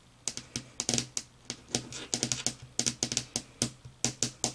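Quick irregular clicks and crinkles of plastic snack packaging being handled, coming in short clusters.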